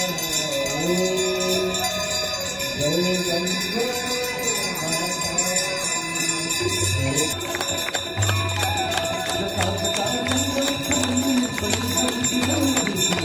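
Hindu aarti music: a singer chanting a devotional melody over continuously ringing bells, with a steady drum beat joining about seven seconds in.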